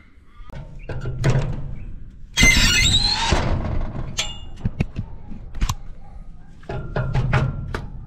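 Cordless drill driving self-drilling Tek screws through a steel bracket into a metal gate post: short runs of the drill motor, a loud, harsh screech about two and a half seconds in as the screw point cuts through the steel, and a few sharp clicks.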